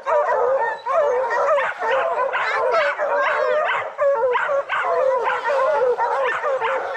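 A pack of bear hounds barking nonstop at a treed bear, many voices overlapping.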